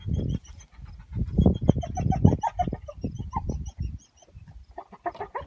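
Rapid runs of short clucking calls from a bird, several a second, over a low rumble. The calls pause briefly about four seconds in, then start again thicker and lower-pitched near the end.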